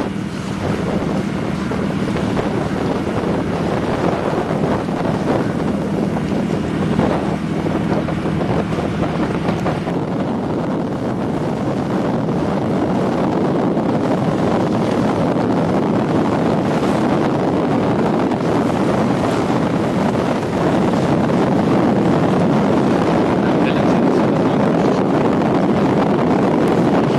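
Wind buffeting the microphone over the rush of water on a yacht under way at sea, louder in the last few seconds, with a faint steady low hum through the first third.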